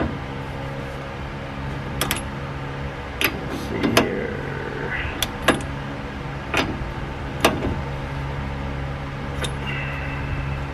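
Scattered metal clicks and clinks from a socket ratchet on a tie rod castle nut. The nut is being turned a little further to line up the cotter pin hole. A steady low hum runs underneath.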